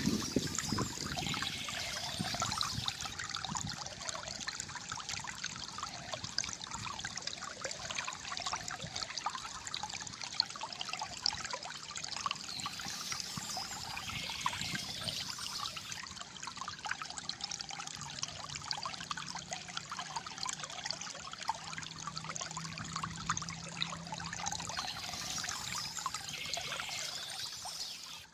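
Shallow stream water trickling and gurgling steadily, with birds chirping now and then.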